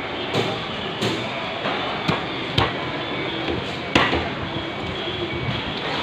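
Heavy cleaver chopping barramundi into steaks on a thick wooden chopping block: several separate sharp chops, the loudest about four seconds in, over steady background noise.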